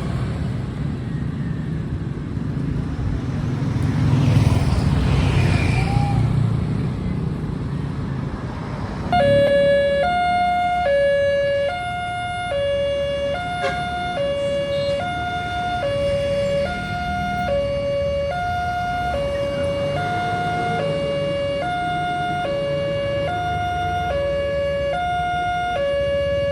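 Road traffic rumbles for about nine seconds. Then a railway level-crossing warning alarm starts suddenly: an electronic two-tone siren switching steadily between a higher and a lower pitch, each held for about two-thirds of a second, signalling that the barrier is closing for an approaching train.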